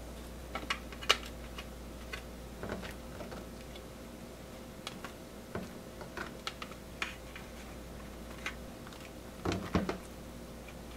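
Hands packing rice-paper spring rolls into a plastic bento box: light, irregular clicks and taps of plastic and food being set in place, with a cluster of duller knocks about nine and a half seconds in. A faint steady hum sits underneath.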